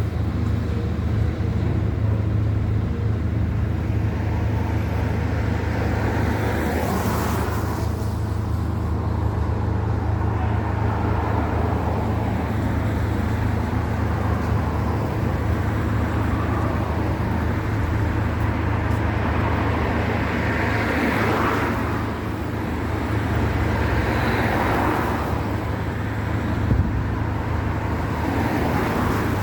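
Steady low engine hum, with vehicles passing on the road several times.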